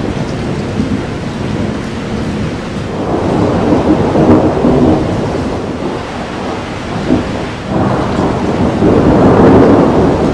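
Thunder rolling over a steady hiss of rain, with two louder swells of rumble: one about three seconds in and one near the end.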